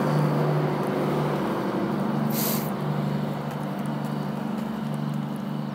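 A motor vehicle engine running with a steady low hum, broken about two and a half seconds in by a short burst of hiss.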